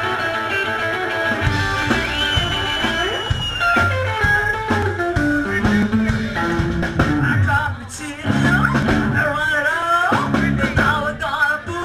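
Live rock and roll band playing: a woman singing over guitar, upright bass and drums, with a high note held for a second and a half about two seconds in.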